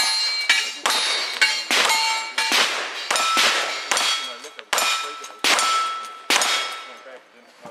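A rapid string of about ten gunshots, roughly one every three-quarters of a second. Most are followed by the brief metallic ring of a steel target being hit.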